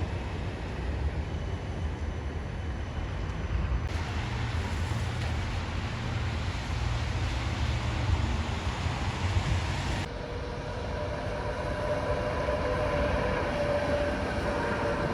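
A rail vehicle rumbling by in a wet city street, over a steady hiss. From about ten seconds in, a metallic whine of wheels or brakes comes in, its tones bending slowly.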